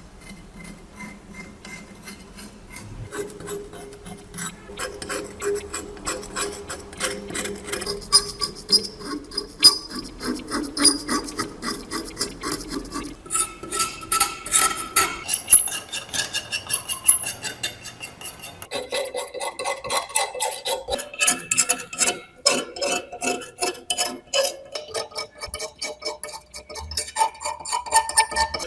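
Hand tools scraping and rubbing on the metal of a rusty hunting knife in rapid, uneven strokes, with sharp clicks and short metallic rings.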